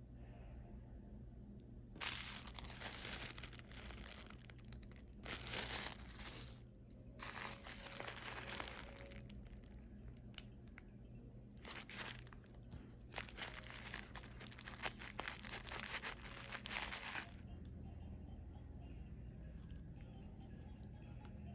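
Packaging being torn open and crumpled by hand, in rough bursts with short pauses, for most of the stretch before it settles down near the end.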